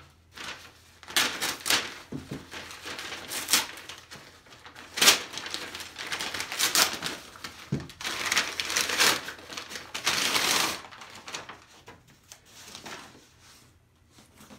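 Plastic FedEx shipping mailer crinkling and tearing in irregular bursts as it is pulled open and a cardboard box is drawn out, with a longer stretch of rustling late on and one dull knock about eight seconds in.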